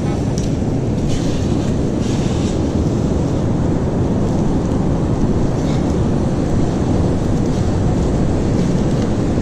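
Steady rumble of heavy surf and wind on the microphone, with a few brief scraping sounds.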